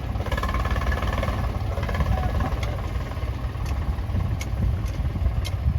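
Heavy diesel engine running steadily, with a few short light clicks in the second half.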